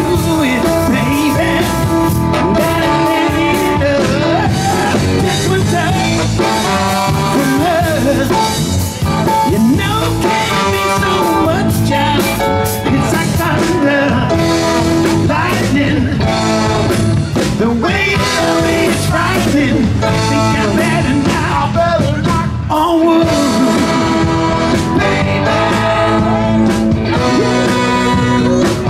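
A live blues-rock band playing an amplified song on electric guitars, bass, drums, keyboard and saxophone, loud and continuous.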